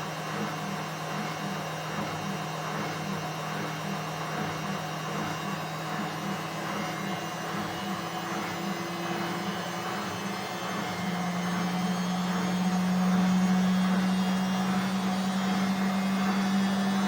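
Indesit WISN 101 washing machine running during its rinse cycle: a steady motor hum with a faint regular pulsing. About two-thirds of the way through, the motor's pitch steps up and it grows louder as the drum speeds up.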